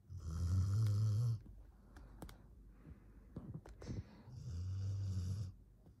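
Elderly border collie snoring in deep sleep: two loud snores, each about a second long, one at the start and one about four and a half seconds in, with quieter breathing between them.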